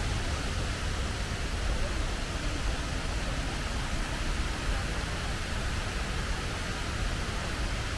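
Waterfall's falling water rushing steadily, with a heavy low rumble underneath.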